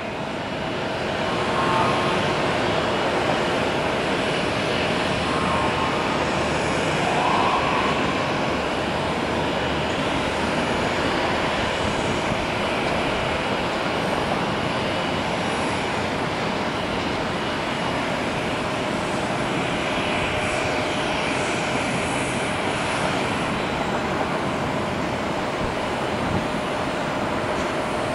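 Airbus A320-family jetliner's engines, heard as a steady, continuous rushing noise as the airliner lands and rolls out along the runway.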